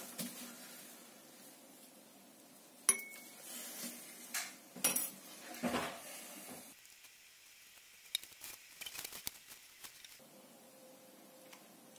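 Glass beaker clinking and knocking as it is handled: one sharp clink about three seconds in, a few duller knocks after it, then a run of quick small ticks.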